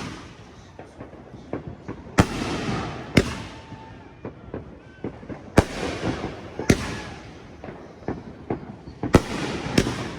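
Fireworks going off: six loud bangs at uneven intervals, each trailing off, with many smaller crackling pops in between.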